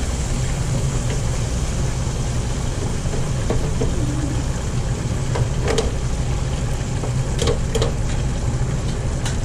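Steady low hum over the hiss of shrimp frying in an electric deep fryer, with a few light metallic clicks as the wire fry basket is lifted and shaken, mostly in the second half.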